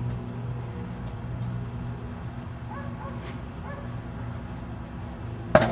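Microwave oven humming steadily, with a few short high yelps in the middle and one sharp click near the end.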